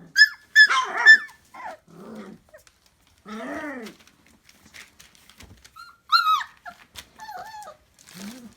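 Red Doberman puppy vocalising in a string of short, high-pitched yips and whines, with a longer, lower whine about three and a half seconds in.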